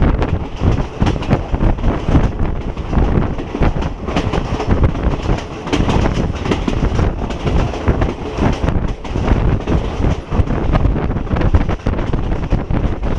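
Train running along the track, with a continuous clatter and rumble of wheels on rails, and wind buffeting the microphone.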